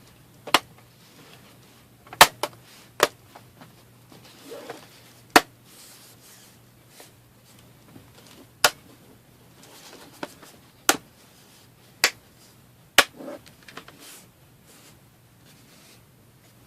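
Plastic retaining clips of an HP Omen 15 laptop's bottom cover snapping into place one after another as the panel is pressed back on: about nine sharp snaps at irregular intervals, a second or two apart.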